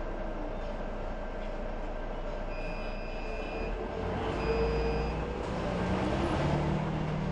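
Inside a TransJakarta articulated bus at a station stop: the engine runs at idle, then revs up louder as the bus pulls away over the last couple of seconds. Two short high beeps sound near the middle.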